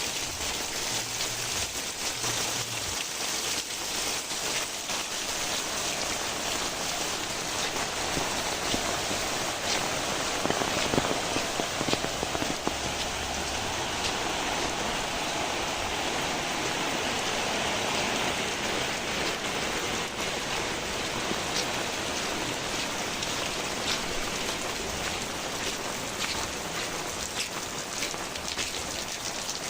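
Heavy rain falling steadily, with the patter of individual drops striking surfaces.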